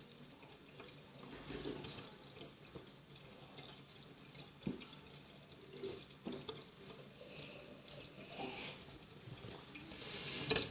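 A person drinking a thick milkshake of raw egg, chocolate and milk from a cup: faint gulping, swallowing and liquid sounds, with a few sharper gulps along the way.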